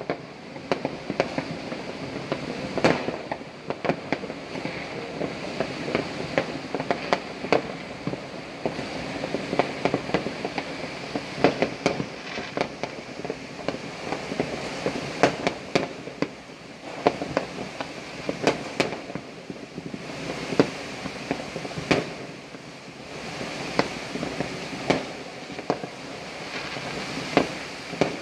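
New Year's Eve fireworks and firecrackers going off across a city: a continual, irregular scatter of sharp bangs and pops over a steady hiss.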